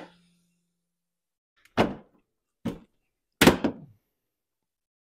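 Plastic front bumper cover on a Toyota 4Runner being pushed and knocked into place: a sharp click, then three hollow knocks about a second apart, the last one doubled.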